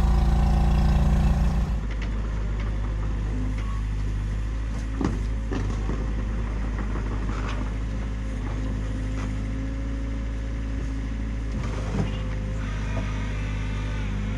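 Mini excavator's diesel engine running at high revs, dropping to a steady idle about two seconds in, with a couple of light clicks over the drone.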